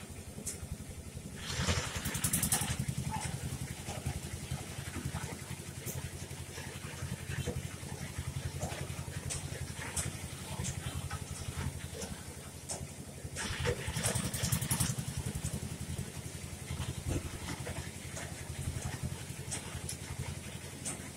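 An engine idling steadily with a fast low pulse. It grows louder and harsher twice for about a second and a half, once near the start and once about two-thirds of the way through.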